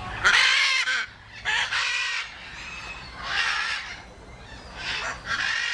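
Domestic goose honking: about five harsh, nasal calls, one every second or so.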